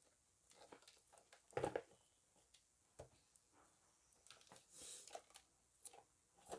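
Faint handling of a boxed action camera's packaging: scattered taps and rustles, a single louder knock about one and a half seconds in, and a brief scrape a little after the middle.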